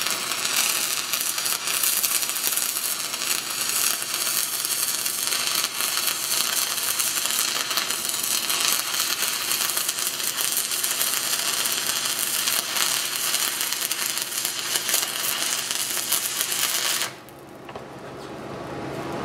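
Stick-welding arc of a 6010 electrode crackling steadily during a downhill hot pass on steel pipe. It cuts off suddenly about 17 seconds in as the arc is broken.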